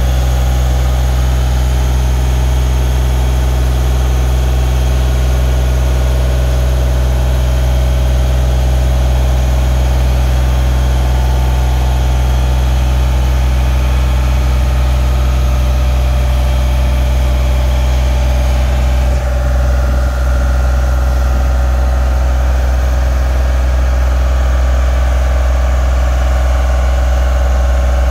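Genie S-40 telescopic boom lift's engine running at a steady speed while the boom is hydraulically lowered and retracted and the turntable swings. There is a strong low hum with steady tones, and the tone changes about two-thirds of the way through.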